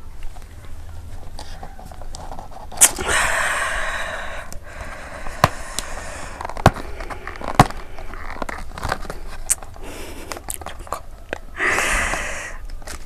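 Cardboard Jolo Chip box being handled and opened: several sharp clicks and taps of the card, with a couple of short stretches of scraping rustle.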